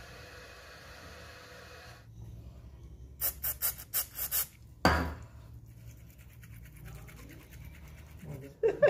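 About six short hissing bursts from an aerosol can of penetrating oil sprayed onto an electric drill's motor armature, followed by one loud thump. A steady background hum stops about two seconds in.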